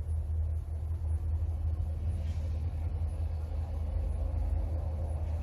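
Steady low background rumble, with a faint brief rustle about two seconds in.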